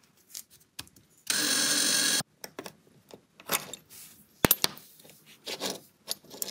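A power drill runs for about a second, drilling out a rivet post to free the die-cast base of a Hot Wheels car. Scattered clicks and taps follow, with two sharp clicks about four and a half seconds in, as the metal base and body are handled.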